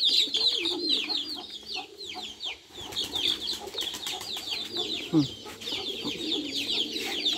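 A group of week-old chicks peeping continuously, each peep short, high and falling, with lower pigeon coos underneath.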